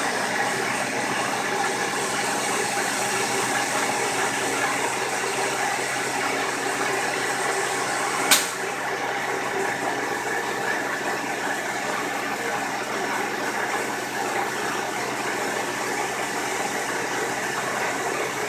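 CNC milling machine running a programmed cut about 10 millimetres deep: a steady machine hum with several held tones over a broad hiss. One sharp click comes about eight seconds in.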